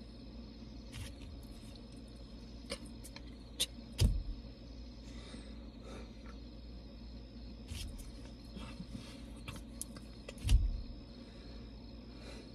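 Two dull thumps, about four seconds in and again near the end, with a few light clicks between, from hands knocking against the steering wheel inside a car cabin. Under them a steady low hum, and crickets chirring in one steady high tone.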